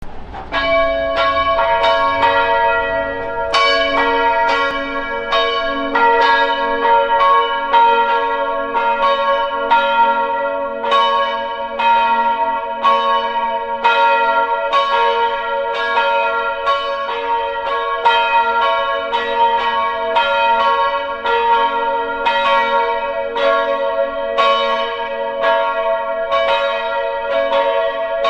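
Several church bells ringing together in a continuous peal, with strikes about twice a second and their tones ringing on and overlapping. The peal starts suddenly.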